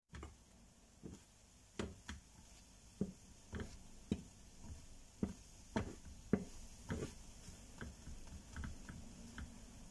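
Slotted plastic spatula tapping and scraping against a small nonstick frying pan as it works under a pancake, making irregular short clicks, some fifteen of them.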